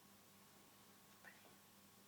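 Near silence: room tone with a faint hum, and one faint brief sound about a second in.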